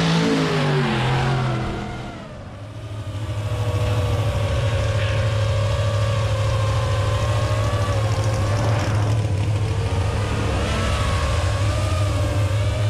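Monster truck engine running steadily at low revs close by: a deep, even rumble with a slightly wavering pitch. It rises in after a brief dip about two seconds in.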